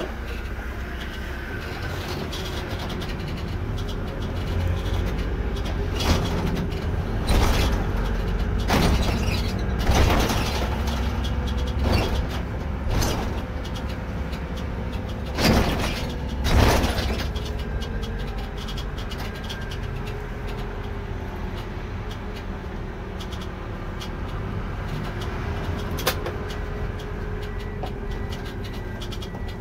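Irisbus Récréo II coach heard from the cab: a steady engine drone with a faint wavering whine. Between about six and seventeen seconds in, eight or so short, sharp bursts of noise come and go, the loudest about fifteen to seventeen seconds in.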